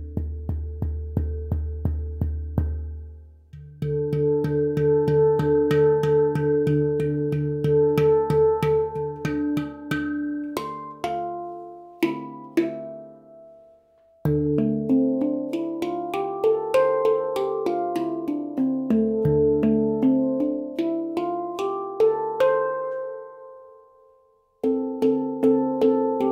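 Baopan handpan tuned to D Amara, played with the fingers: quick rhythmic strikes on its tone fields, each note ringing on, with a deep bass pulse under the first few seconds. In the second half, runs of notes step up and down the scale; twice the playing stops and the notes ring out almost to silence before it starts again.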